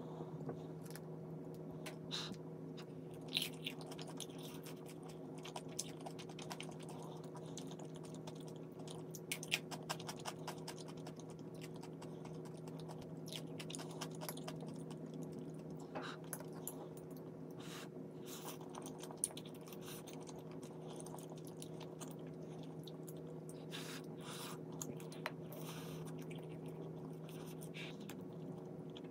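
Eating sounds: chewing, with many short sharp clicks of metal chopsticks against the bowl, over a steady low hum.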